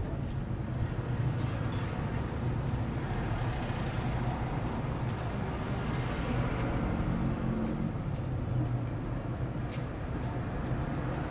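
Street traffic: a car drives past, its tyre and engine noise swelling and fading about halfway through, over a steady low hum.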